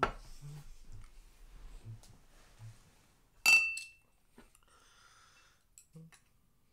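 A ceramic rice bowl set down on a wooden table with a knock, then about three and a half seconds in a bright clink of chopsticks against a ceramic bowl that rings briefly, followed by a few faint small clicks of tableware.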